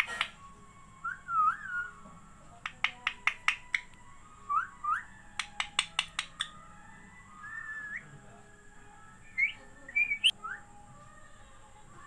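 Rose-ringed parakeet (Indian ringneck) making short rising and arching whistles and chirps, with two quick runs of sharp clicks in between.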